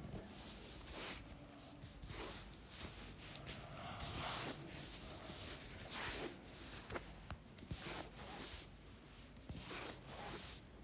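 Hands rubbing and kneading the neck and shoulders during a head and neck massage, a series of soft swishing strokes about one or two a second, with a few small clicks.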